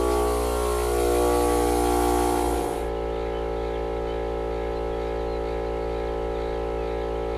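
Smittybilt 12V portable tire air compressor running steadily while inflating a truck tire: a steady droning hum with many overtones. A hissing layer above the hum stops about three seconds in.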